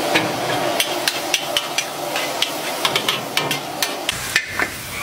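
Metal spatula clanking against a wok while noodles are stir-fried, irregular knocks about three or four a second over a steady sizzle of frying.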